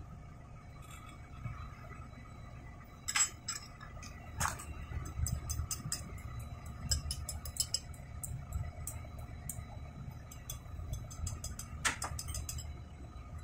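A spanner and metal pump parts clinking and tapping against each other while a small pump is reassembled. Three sharper clinks with a brief ring come about three seconds in, about four and a half seconds in and near the end, with many light ticks between them, over a steady low rumble.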